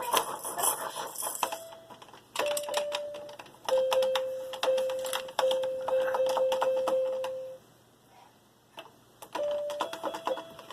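Fisher-Price Learn with Puppy Walker baby toy: rapid plastic clicking and rattling mixed with steady electronic tones held for a second or so at a time. The tones come from about one and a half seconds in until about seven and a half seconds, then again near the end.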